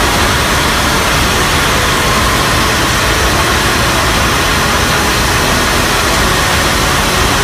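A small hybrid rocket motor firing in a static test run, its exhaust a loud, steady rushing noise without a break.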